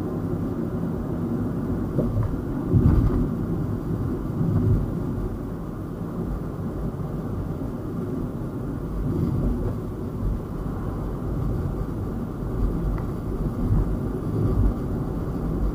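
Car being driven on a road: a steady low rumble of tyres and engine, with a few brief louder swells.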